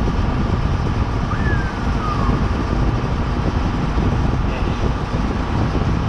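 Tractor engine running steadily, heard from inside the closed cab, with the air conditioning now working.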